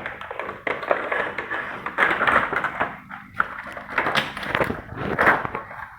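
A toy's box and packaging being opened by hand: irregular rustling and scraping with short knocks and clicks.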